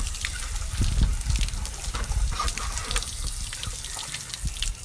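Water gushing steadily out of an RV water heater's drain opening and splashing onto the ground, as a tank-rinser wand stirs up the tank, flushing out white mineral-deposit chunks.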